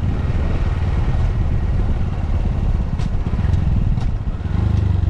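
Honda Grom's small single-cylinder engine running steadily as the motorcycle is ridden, with wind rushing over the microphone.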